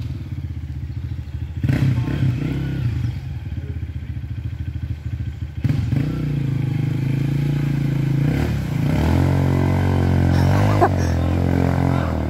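Honda CRF230F dirt bike's single-cylinder four-stroke engine running, getting louder as it approaches, then revving up and down as it rides into a deep muddy puddle, with water splashing near the end.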